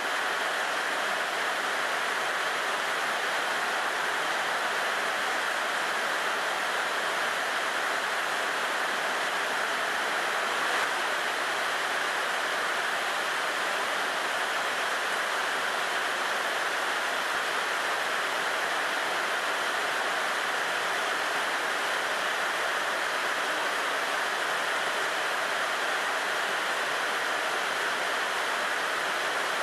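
Heavy rain pouring steadily onto banana plants and trees, an even, unbroken hiss of falling water.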